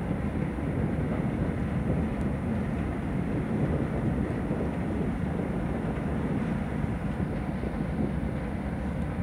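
Steady low rumble of the ferry Superfast XII under way as the ship moves slowly past on departure.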